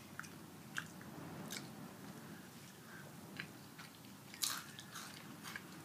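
Nacho chips being bitten and chewed: scattered crisp crunches at an uneven pace, with the loudest cluster about four and a half seconds in.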